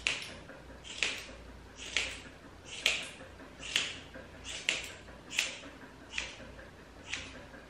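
Grooming scissors snipping through a border collie's long tail hair: a steady run of short, crisp cuts, about one a second.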